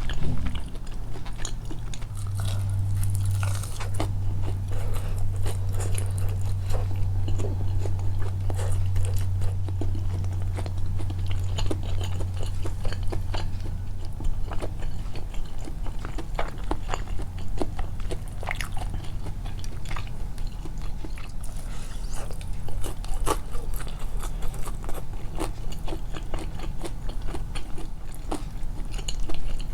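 Close-miked biting and chewing of juicy fried chicken, with small crunches and wet mouth clicks. A steady low hum runs under the first half.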